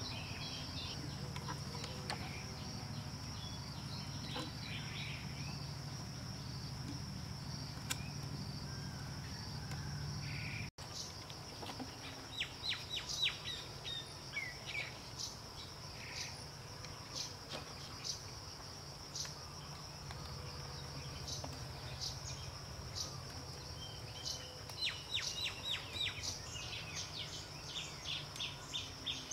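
Steady high-pitched insect drone, with short runs of quick bird chirps coming in a few times in the second half.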